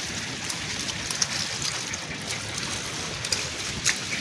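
Sea water sloshing and trickling against a wooden outrigger boat, with a few short knocks about a second in and near the end.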